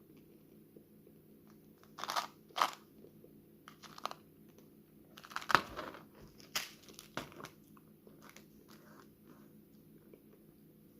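Crinkling and crackling of a gum pack being handled and opened by hand, in irregular sharp bursts. The loudest come in two clusters, about two seconds in and again midway.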